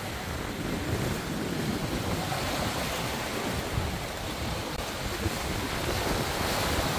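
Steady wind buffeting the microphone over the rush of rough open-ocean waves and white water foaming past the hull of a sailing catamaran.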